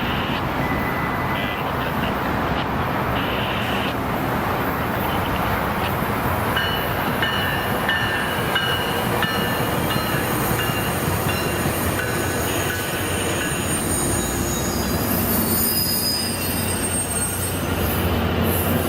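Train rolling past on steel rails, its wheels squealing; thin high squeals come and go from about six seconds in, over a steady running noise.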